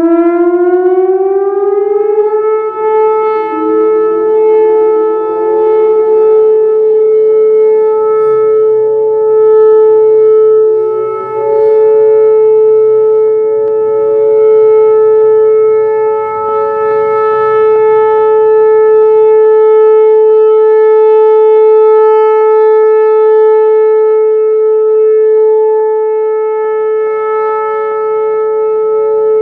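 Whelen Vortex R4 electronic outdoor warning siren starting up, its pitch rising for about two seconds, then holding a steady alert tone, its loudness swelling and dipping slowly. Fainter sirens elsewhere in town wind up underneath during the first ten seconds or so.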